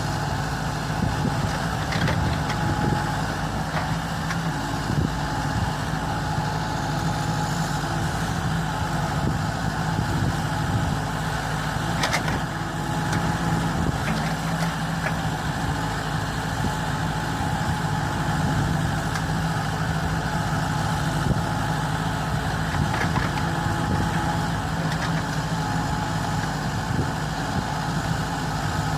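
Backhoe's engine running steadily, with an occasional sharp knock.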